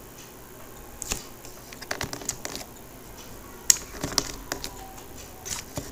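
Computer keyboard keystrokes and mouse clicks: scattered sharp clicks, some in quick runs of two or three, the sharpest about two-thirds of the way through.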